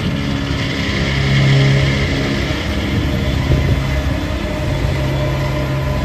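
New Holland self-propelled swather running at speed as it cuts hay: a steady engine drone with a hiss over it, swelling a little about a second and a half in.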